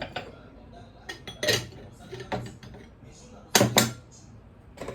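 Dishes and cutlery clattering as they are handled: a few separate knocks and clinks, the loudest a pair about three and a half seconds in.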